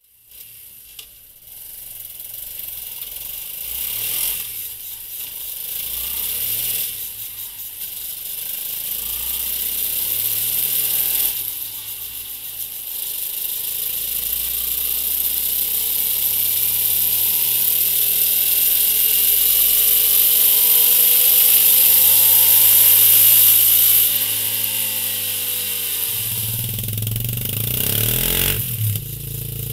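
Suzuki Van Van 200's single-cylinder four-stroke engine running on a roller dyno through its stock silencer. It takes a few short revs, then pulls in one long run with the pitch rising steadily until the throttle closes about three-quarters of the way in. In the last seconds the same engine is heard through a Mivv GP slip-on silencer.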